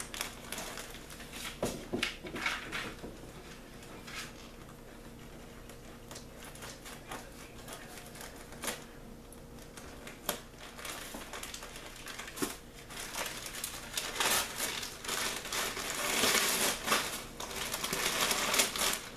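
Christmas wrapping paper crinkling as a gift is unwrapped, with scattered light clicks. From about three-quarters of the way through, the paper is torn open and crumpled, louder and denser.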